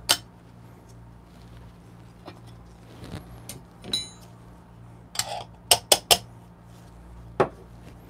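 Stainless espresso tools and a portafilter clinking and knocking as they are set down and handled in a wooden tamping station: a handful of sharp clinks, one ringing briefly near the middle and a quick cluster a little later, over a low steady hum.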